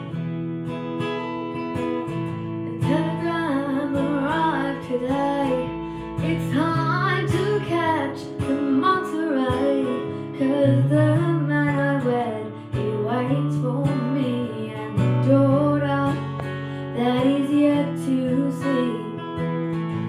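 Acoustic guitar strumming chords. About three seconds in, a wavering lead melody line comes in over it.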